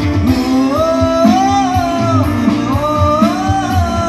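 A man sings live into a microphone, with a Technics KN7000 arranger keyboard accompanying him through PA speakers. The voice holds two long notes that bend in pitch over a steady drum-and-bass beat.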